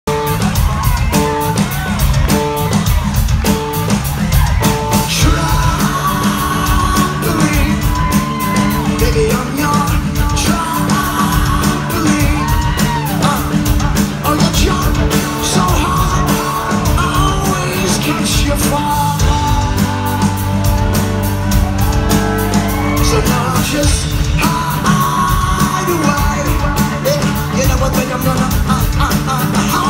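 Rock band playing live with a steady beat, a man singing into the microphone, and the crowd yelling along.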